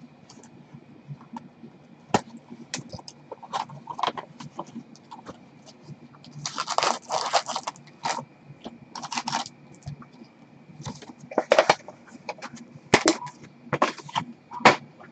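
Hockey card packs being torn open and the cards handled and set down by gloved hands: scattered crinkles and clicks, with a few longer rustling tears of the pack wrapper, the longest about seven seconds in.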